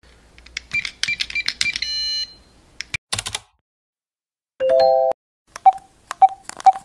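Animated-intro sound effects: a run of quick clicks and beeps with a short held chime, a brief whoosh, a rising three-note chime, then evenly spaced typing-like clicks, each with a beep, about twice a second.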